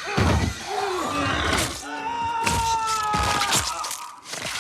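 Screams and anguished groans from a voice under attack, with a long high-pitched scream held through the middle.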